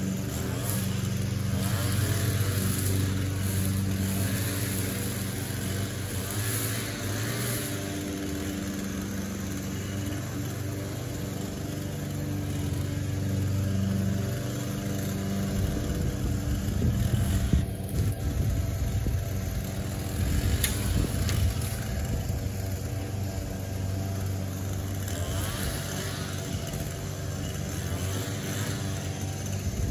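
Small gasoline engine of lawn equipment running steadily at a constant speed. A deeper rumble joins it for several seconds about halfway through.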